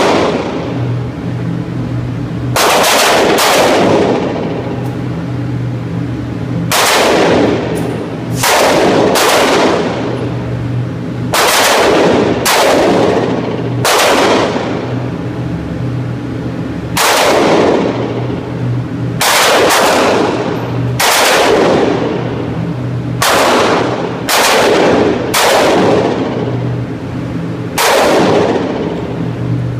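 Glock 27 .40 S&W subcompact pistol firing, about eighteen shots in pairs and short strings with pauses of a second or more between them. Each shot rings on in the reverberation of an indoor range, over a steady low hum.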